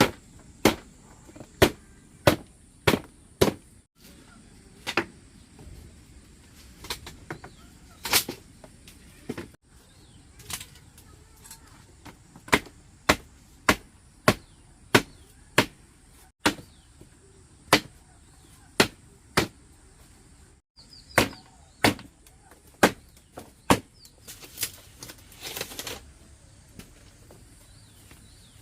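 Hammer or hand-tool strikes on wood: a long run of sharp knocks, about one to two a second, broken by a few abrupt cuts.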